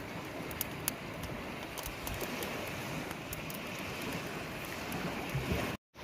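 Small fire of dry sticks and driftwood crackling, with scattered sharp pops over a steady rushing background. The sound drops out abruptly for a moment near the end.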